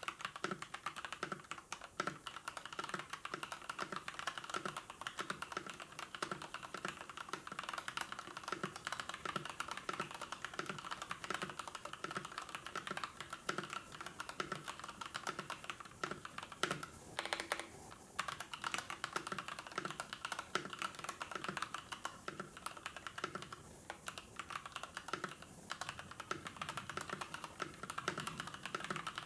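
Rapid, continuous typing on a computer keyboard, dense keystroke clicks with a brief pause about two thirds of the way through.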